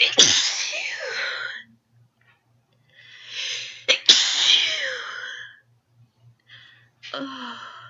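Two full sneezes brought on by sniffed pepper. The first comes right at the start; the second comes about four seconds in, after a drawn-in breath builds up to it. A shorter breathy sound follows near the end.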